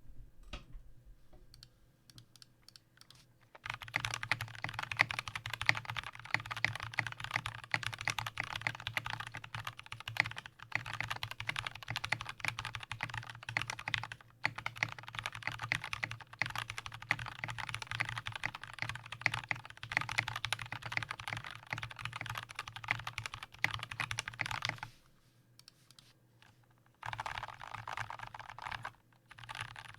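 Typing on a custom 60% mechanical keyboard with lubed and filmed Gateron Brown tactile switches, an aluminium plate and a foam-filled zebrawood case. A few single key presses at first, then a fast, even run of keystrokes from about four seconds in with a couple of brief gaps, stopping about twenty-five seconds in and starting again shortly before the end.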